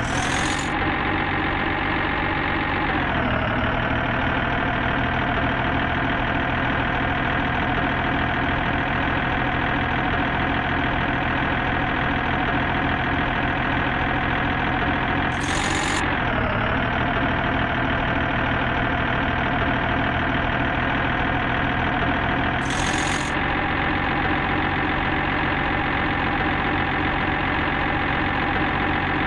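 Vehicle engine idling steadily. Its pitch dips briefly about three seconds in and again around sixteen seconds. Short bursts of high hiss come near the start, around sixteen seconds and around twenty-three seconds.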